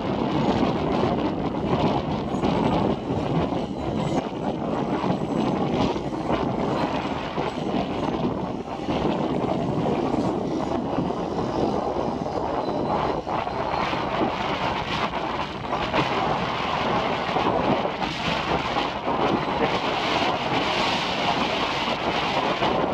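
Steady jet roar of Kawasaki T-4 jet trainers overhead, mixed with gusty wind buffeting the microphone; the roar grows brighter and more hissing near the end.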